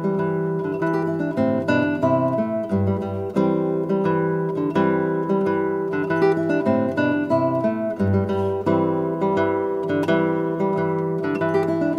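Background music: an acoustic guitar picking a melody over sustained bass notes.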